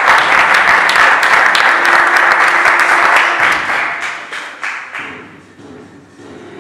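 Audience applauding, loud for about four seconds and then dying away, with the act's music going on underneath.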